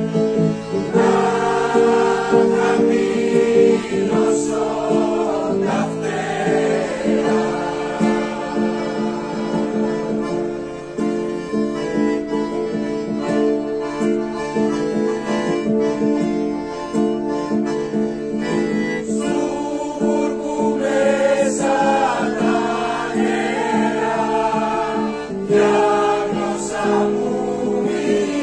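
Mixed choir of men and women singing together, accompanied by an acoustic guitar.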